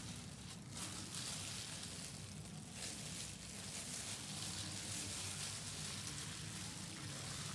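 Plastic-gloved hands working raw ground-meat stuffing into a deboned chicken's skin: a soft, continuous crackly rustling and squishing, over a faint low hum.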